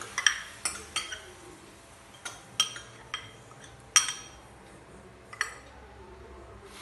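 A steel spoon clinking and tapping against a mixer jar and an iron kadai as ground herbal paste is scraped out into the pan. About nine sharp, irregular clinks; the loudest comes about four seconds in.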